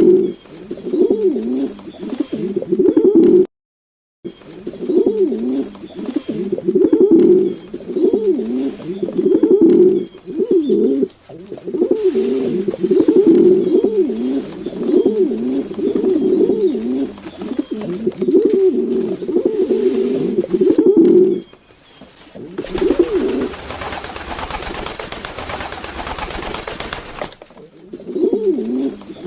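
Domestic pigeons cooing over and over, low warbling coos one after another. About two-thirds of the way in the coos give way to a few seconds of rushing noise before the cooing resumes.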